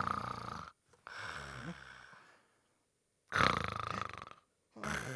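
Exaggerated cartoon snoring: four drawn-out, rasping snore breaths, each followed by a short pause. The sound is likened in the story to a kangaroo or to an alarm clock being wound up.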